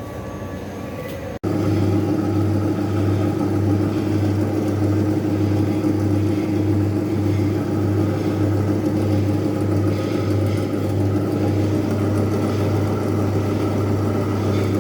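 Steady electric motor hum with a low drone that pulses about twice a second, starting abruptly about a second and a half in.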